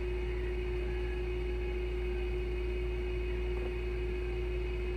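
Steady background hum from a running appliance motor, holding one constant tone with a low rumble beneath and no change in level.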